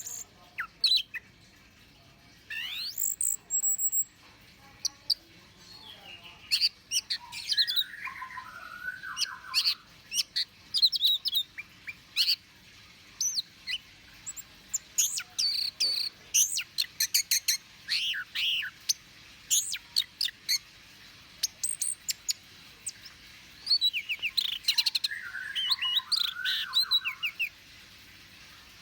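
Orange-headed thrush singing: a long, varied song of rapid high chirps and trills delivered in phrases with short pauses, with lower slurred whistles about eight seconds in and again near the end.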